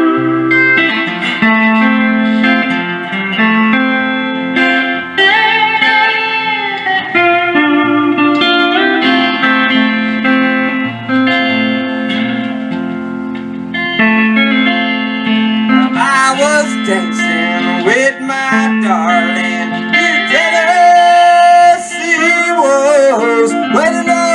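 Live band music led by electric guitar, playing held notes with sliding bends over a steady bass line; the lead turns more wavering and bent about two-thirds of the way through.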